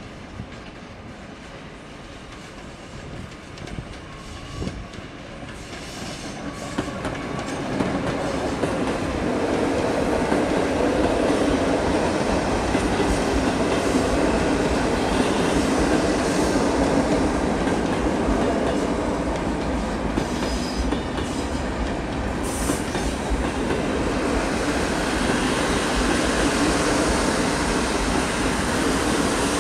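Passenger train hauled by an EU160 (Newag Griffin) electric locomotive approaching and growing louder over the first eight seconds or so, then its coaches rolling past close by with a steady rumble and the clatter of wheels over rail joints and points.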